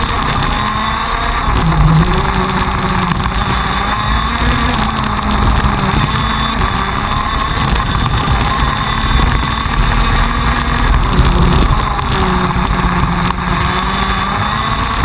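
TM 125 cc two-stroke KZ2 shifter kart engine running at racing speed, heard from the kart's onboard camera, its note rising and falling over and over as the driver accelerates, brakes and corners.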